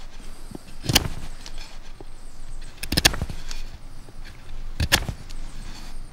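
Knife blade slicing into a wooden stick in hard forehand power cuts, carving a point on its end: sharp cuts about every two seconds, one of them doubled.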